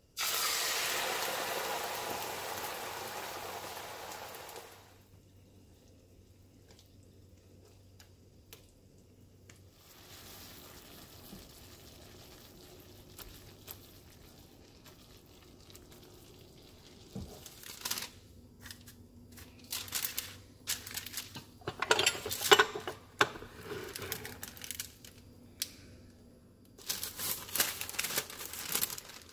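Cooked beans poured into hot oil in a frying pan, sizzling loudly at once and dying away over about five seconds. Later a potato masher scrapes and squelches through the beans in the pan. Near the end comes a burst of crinkling from the plastic sheets of a tortilla press being handled around a pressed corn tortilla.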